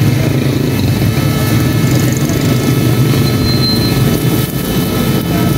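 Steady, loud low rumble of something mechanical running, such as a motor or fan.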